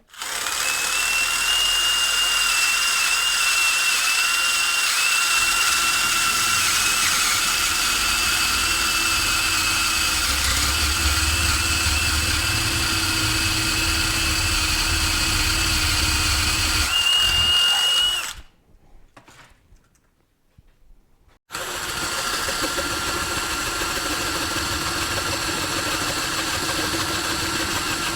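Electric drill running under load, boring out a steel motorcycle swing arm in stepped drill sizes. It whines steadily for about eighteen seconds, stops for about three seconds, then starts and runs again.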